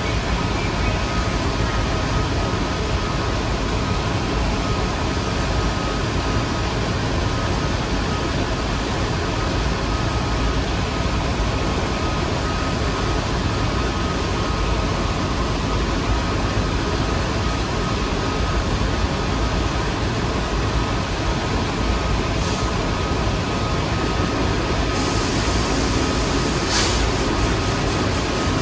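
New York City subway train noise: a steady rumble with faint steady hum tones and a short click near the end.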